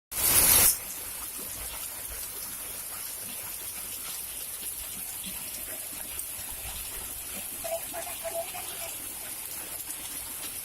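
Heavy rain pouring down in a steady hiss, with a louder rush of noise in the first moment.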